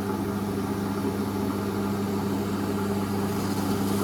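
Warco GH1330 gear-head lathe running at low speed, a steady mechanical hum.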